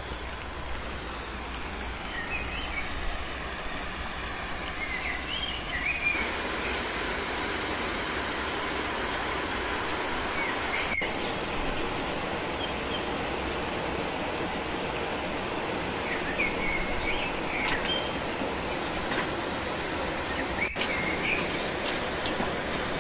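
Outdoor ambience: a steady rushing noise, with short bird chirps now and then and a high steady whine that stops about eleven seconds in.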